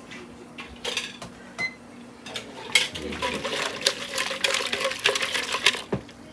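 Metal tongs clicking and rattling against a plastic jug as just-boiled kuruma prawns are swished in vinegar, with liquid sloshing. A couple of single clicks come about a second in, then quick, busy rattling from about three seconds in until near the end.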